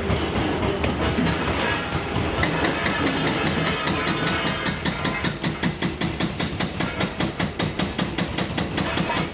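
Hydraulic breaker on a demolition excavator hammering concrete, starting about halfway through and settling into a fast, even rate of about nine blows a second, over the steady running of the excavators' diesel engines.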